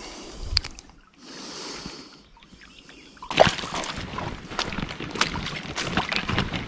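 Water splashing and sloshing as someone moves through a shallow river, becoming louder and busier about three and a half seconds in.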